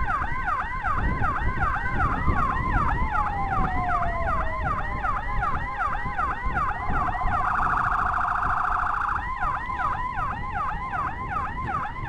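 Escort motorcycle's electronic siren sounding a rapid yelp, about four sweeps a second, keeping the road clear for an ambulance that has no siren of its own. A second tone slides slowly down in pitch in the first half, and a harsh buzzing horn tone cuts in for a couple of seconds near the end, over engine and road rumble.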